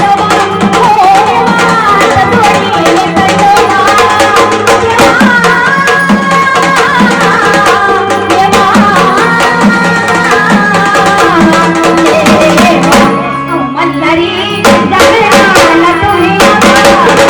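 Gondhal folk music: sambal drums beat a fast rhythm under an electric organ (keyboard) melody. About thirteen seconds in the drumming stops briefly, leaving held organ notes, then starts again.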